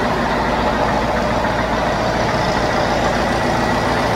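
Heavy diesel engine idling steadily, an even running sound with no revs or changes.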